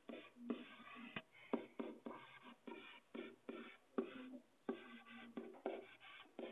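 Faint, indistinct chatter of several students talking at once in a small classroom, with a few light taps.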